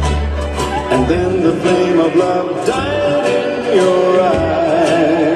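Music with a singer over a band, the voice carrying a wavering melody above a steady beat and bass.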